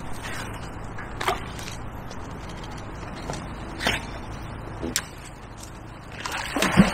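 A few short faint knocks, then near the end a thrown fishing magnet splashing into canal water, over a steady low background hum.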